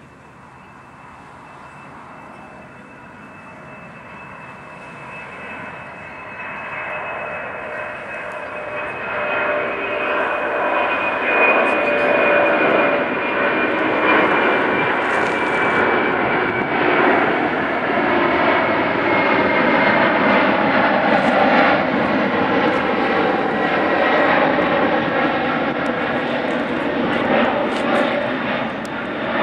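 Boeing 747-400D's four General Electric CF6-80C2 turbofan engines at climb thrust just after takeoff. The sound grows louder over the first ten seconds as the jet passes overhead, then holds as a loud rumble with a high whine that slowly falls in pitch.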